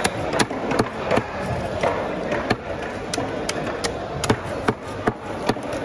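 Knives cutting and chopping fish on wooden chopping blocks: a string of sharp, irregular knocks, about two to three a second, over a steady background hum of the fish market.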